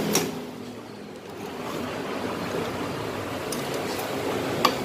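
Two sharp metallic clicks, one just after the start and one near the end, with a few faint ticks between, as the parts of a dismantled scooter engine are handled, over steady background noise.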